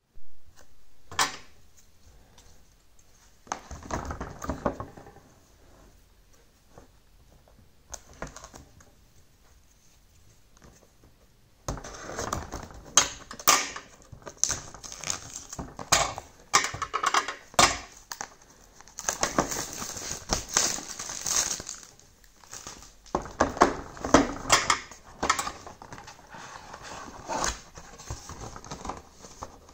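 Cardboard retail box of a Yeelight Lightstrip Plus being handled and opened: taps, scrapes and rustling of cardboard and packaging against the desk. Sparse at first, with a busy run of clicks and rustles through the second half.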